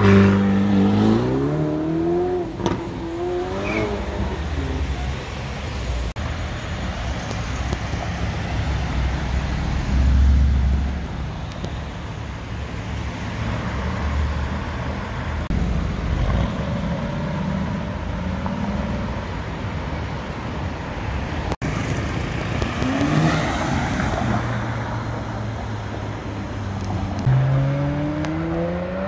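Ferrari California's V8 accelerating away, its pitch rising in two sweeps as it changes up a gear. Then city traffic, and near the end another car accelerating hard with a rising engine note.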